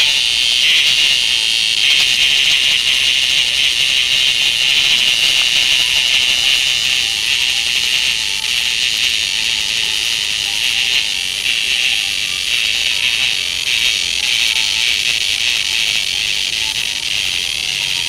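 Cicada held in a child's fingers, buzzing in one steady, high-pitched drone. It is the call a grasped cicada gives when held or pressed.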